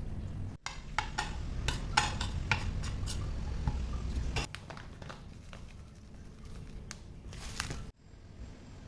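Kitchenware clinking and clattering: a run of sharp knocks and clicks over a low rumble for the first four seconds or so, then fainter, scattered clicks.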